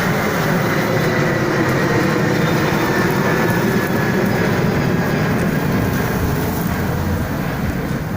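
Jet airliner passing close, a loud steady engine noise with a faint high whine that drifts slightly down in pitch.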